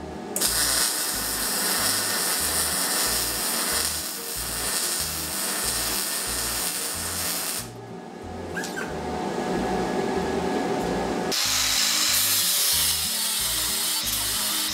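MIG welder arc crackling on steel in two runs with a short break between. About two-thirds of the way through an angle grinder takes over, grinding the steel weld. Background music with a steady beat underneath.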